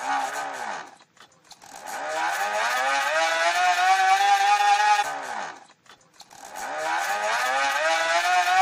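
Buzzing, motorbike-like rattle of a noisemaker slapping a bicycle wheel's spokes. It rises in pitch as the wheel speeds up and then holds steady. It comes in runs: a brief one falling away at the start, then two longer runs with a short drop-out between them near the middle.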